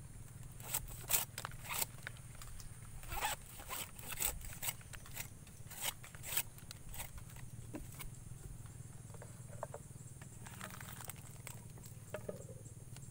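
Coconut tapper's curved knife slicing thin shavings off the end of a coconut flower stalk: a dozen or so short, crisp scraping cuts over the first seven seconds, then a few fainter ones. The fresh cut renews the stalk so the sap keeps dripping for palm sugar.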